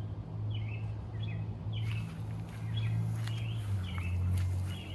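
A songbird chirping, short repeated phrases about once or twice a second, over a steady low rumble.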